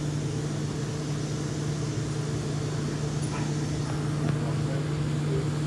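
Steady low mechanical hum of a running machine, unchanging in pitch, with a few faint light ticks about three seconds in.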